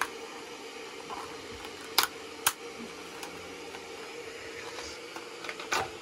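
Clear plastic lids of takeaway sushi-roll trays being handled and opened: two sharp plastic clicks half a second apart around the middle, and a brief rustle near the end, over a faint steady hum.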